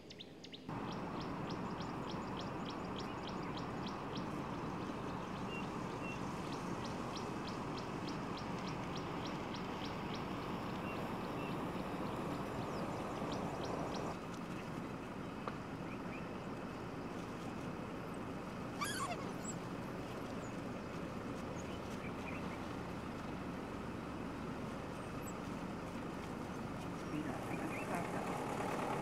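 Steady outdoor background noise with birds calling. A rapid, even series of high ticking notes runs for the first ten seconds or so, and a single brief high wavering call comes about two-thirds of the way through.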